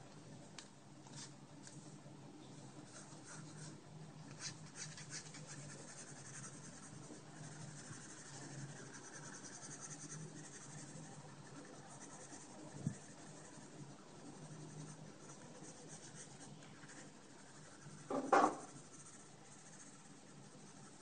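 Pencil scratching on paper in quick, repeated sketching and hatching strokes. Near the end there is one brief, louder thump.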